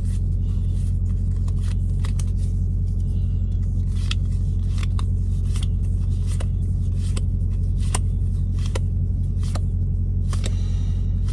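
Pokémon trading cards being flicked through by hand, a light click at uneven intervals as each card slides off the stack. Under it is the steady low drone of an idling semi-truck engine.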